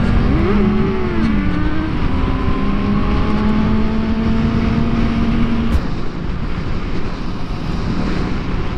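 Sport motorcycle engine running on the road under heavy wind rush on a helmet-mounted microphone. Its pitch rises and falls once about a second in, then holds steady; after about six seconds the engine tone drops away and mostly wind noise is left.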